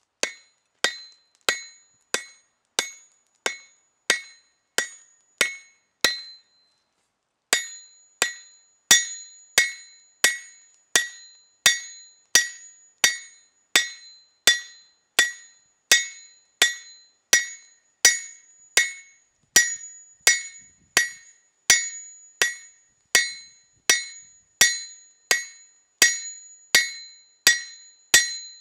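Hand hammer striking a hot spring-steel shamshir blade on an anvil, drawing it out: a steady rhythm of about one and a half blows a second, each with a bright metallic ring. There is a brief pause about six seconds in, then the hammering resumes.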